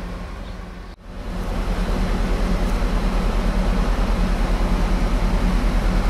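A heavy machine engine running steadily with a regular low throb. It drops away briefly about a second in, then comes back louder and keeps running evenly.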